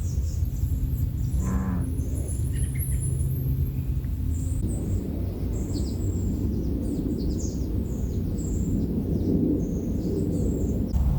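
Small songbirds calling, with many short, high chirps overlapping, over a steady low rumble.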